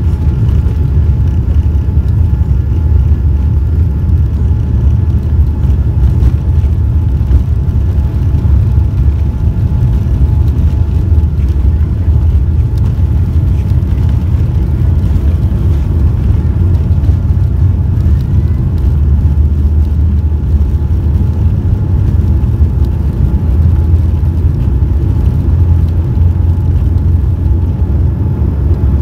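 Jet airliner cabin noise while taxiing: a steady low rumble of the engines at taxi power, heard from inside the cabin, with a faint steady whine above it.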